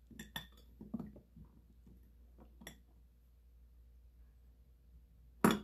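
A woman laughing almost silently: a few soft breathy sounds and small clicks in the first second, one faint click a little before the middle, then a short sharp exhale near the end.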